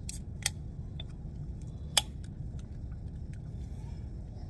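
Soda can being cracked open: a few small clicks, then one sharp, loud crack of the pull tab about two seconds in.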